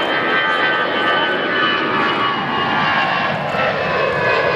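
Airbus A320-family airliner's twin jet engines at takeoff power as it climbs away past the listener: a loud, steady roar with a many-toned whine that slowly falls in pitch as it passes.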